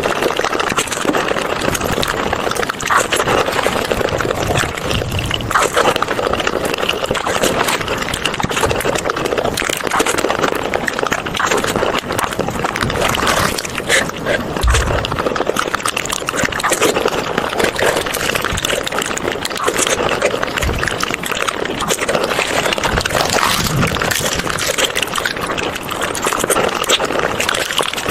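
Close-miked eating: continuous wet chewing and mouth smacking, with many small crackles and clicks.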